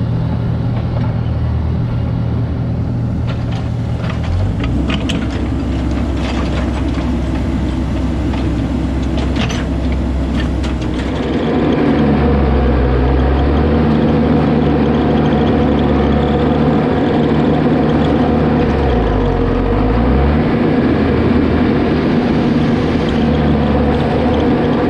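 Excavator's diesel engine running under hydraulic load, its revs shifting as the arm works, with a few knocks in the first half as the bucket taps the end of the culvert pipe down.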